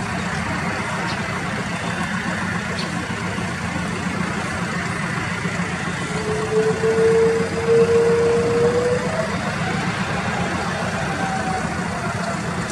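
Nepal Airlines Airbus A330's twin jet engines running as the airliner rolls out along the runway after landing: a steady roar with a low hum. About six seconds in, a tone rises slowly and the sound swells for a few seconds, then a fainter, higher tone follows.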